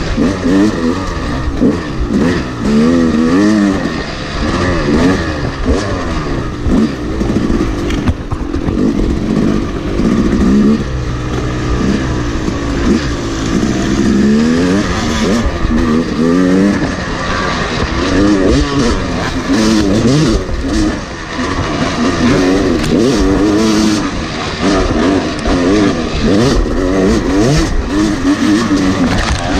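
Dirt bike engine running hard on a rough trail, heard from a camera on its handlebars, its pitch rising and falling again and again as the throttle is opened and closed.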